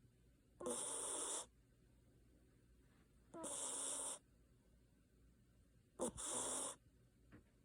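Basenji dog snoring in its sleep: three snoring breaths, each under a second long, about every two and a half seconds, each starting with a short falling tone.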